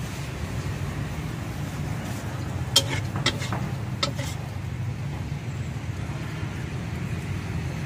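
A spatula scrapes and knocks against a wok about five times in quick succession, about three to four seconds in, as noodles are scooped out of the pan. A steady low rumble runs underneath.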